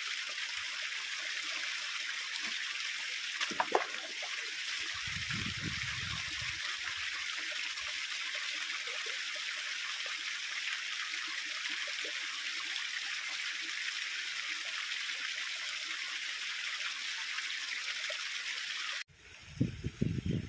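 Small waterfall pouring over rocks into a stream: a steady rush and splash of falling water, with a couple of sharp clicks about three and a half seconds in. Near the end it cuts off suddenly to a much quieter background with a few low thumps.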